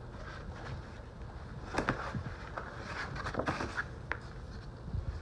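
Packaging and a canvas tote bag being handled by hand: soft rustling with a few light clicks and taps, the clearest about two seconds in and again between three and four seconds in.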